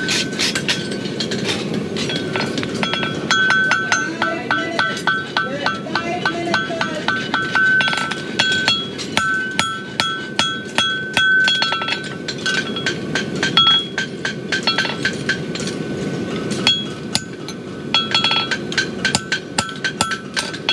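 Forging hammer striking a hot steel horseshoe on an anvil, a long run of quick blows with the anvil ringing after each one, as the shoe is shaped into a bar shoe.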